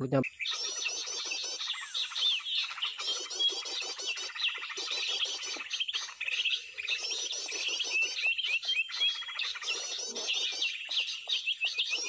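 Small birds chirping and twittering without pause, a dense stream of rapid, high, repeated notes.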